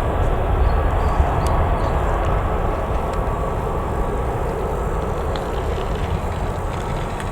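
Jet airliner's engines, a loud steady rumble and rush of noise that slowly fades as the aircraft moves away.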